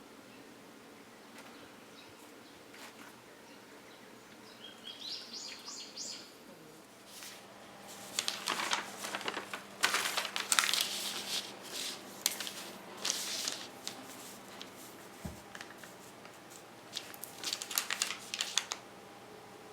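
A short rising bird call about five seconds in, then repeated irregular bursts of crinkling and rustling handling noise through the second half.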